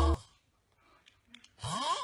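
A person snoring: one noisy breath with a moaning tone that glides in pitch, starting about a second and a half in, after a few faint clicks.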